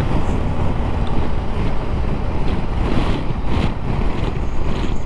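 Wind rushing over the microphone of a motorcycle riding at road speed, with the engine and tyre noise running steadily beneath it.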